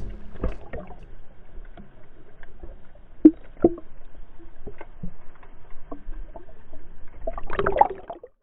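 Water sloshing with scattered knocks and clicks, a louder jumble of noise near the end, then a sudden cut-off.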